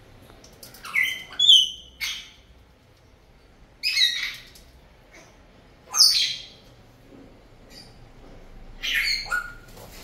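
Sulphur-crested cockatoo giving short, loud squawking calls, about five of them a second or two apart, some with a brief rising whistled note.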